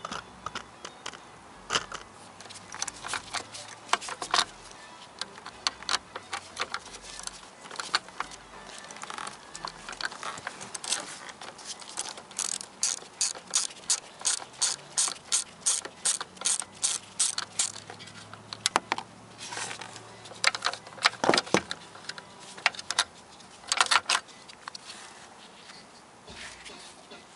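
Hand ratchet wrench clicking as bolts are turned, in short bursts. In the middle comes a long even run of about four clicks a second.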